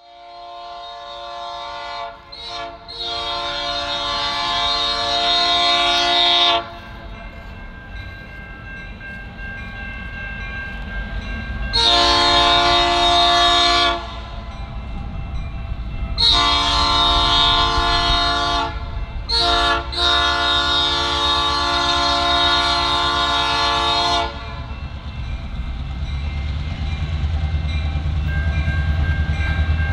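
Air horn of a GTW GP38-2 diesel locomotive sounding for a grade crossing. One long blast, broken briefly near its start, is followed after a pause by the standard long, long, short, long crossing signal. The locomotive's diesel engine rumble grows louder near the end as the train draws close.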